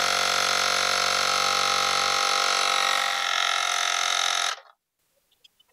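TOPUMP cordless electric tyre inflator running as it pumps up an e-bike tyre through the Schrader valve, a steady mechanical drone with a slight drop in pitch a couple of seconds in. It stops abruptly about four and a half seconds in, leaving a few faint clicks.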